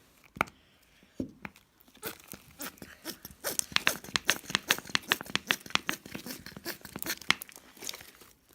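Sticky homemade slime of glue, shaving cream and borax being mixed and worked, giving a few wet clicks and then a dense run of crackling, popping squelches from about two seconds in.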